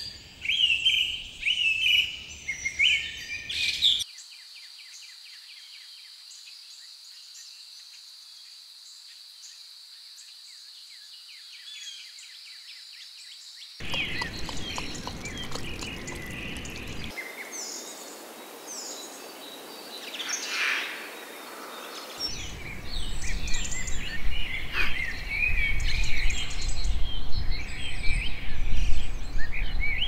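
Nature ambience of many wild birds chirping and calling. In the middle it gives way for about ten seconds to a quieter, steady high trill with fast ticking, like insects. The birdsong then returns louder over a low rumble, and the ambience changes abruptly several times.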